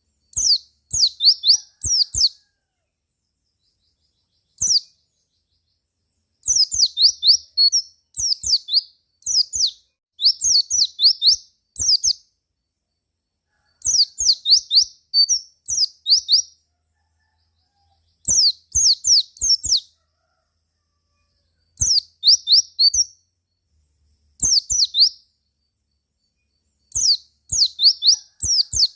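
White-eye (pleci) calling in quick bursts of high, sharp, downward-sweeping chirps, several notes to a burst, the bursts coming every second or few with dead silence between them.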